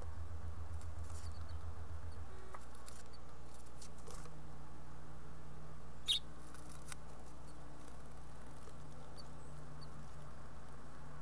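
House finch fledglings shuffling and scratching about the floor of a nest box: scattered faint scrapes and soft taps, the sharpest about six seconds in, over a steady low electrical hum.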